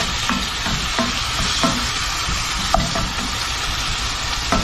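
Ground beef sizzling as it browns in a cast-iron skillet, stirred and broken up with a ground beef separator; the tool scrapes and knocks against the pan four times over the steady sizzle.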